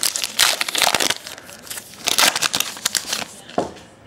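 Crinkling and rustling of trading card packs being handled, in two spells of noisy crackle with a sharp click near the end.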